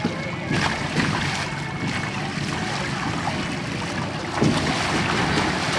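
Water sloshing and splashing around inflatable water-walking balls as people roll and tumble inside them on a shallow pool. There are a few louder splashes, the loudest about four and a half seconds in.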